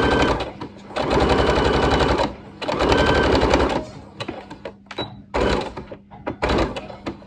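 Domestic electric sewing machine stitching a seam through layered cotton fabric in short runs: three runs of about a second each with fast, even needle strokes, then a few brief spurts near the end.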